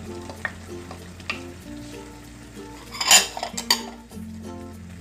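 Diced raw potatoes scraped off a bowl with a wooden spatula and tipped into a frying pan of simmering chicken mixture: light scraping and knocking of spatula on bowl and pan, with two louder clatters about three seconds in.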